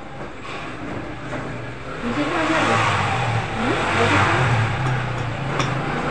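A motor vehicle passing close by with its engine revving: the noise builds about two seconds in, is loudest around four seconds, then eases off.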